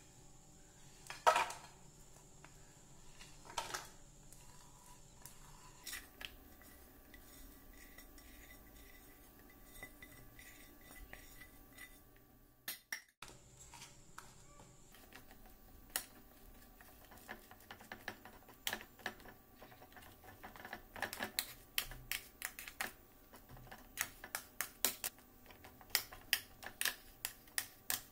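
A steel spoon clicking and scraping against an aluminium baking tray as it presses a nut and sesame mixture flat, with quick taps coming thick and fast in the second half. Near the start, a couple of louder knocks as the mixture is tipped from a pan into the tray.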